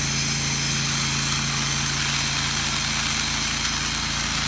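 Pressure washer's engine running steadily with a low hum, under a steady hiss of water spray as soap is rinsed off the house at low pressure.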